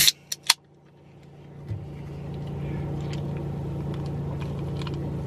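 Two sharp clicks, then the low steady hum of a car's engine and road noise heard from inside the cabin, building over the first couple of seconds and then holding level.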